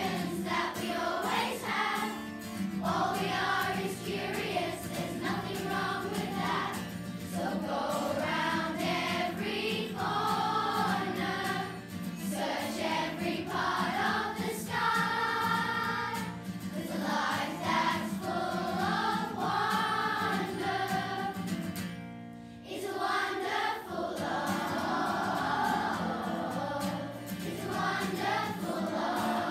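Children's choir of about nine-year-olds singing in unison over a steady backing accompaniment. The voices drop out briefly about three-quarters of the way through, then come back in.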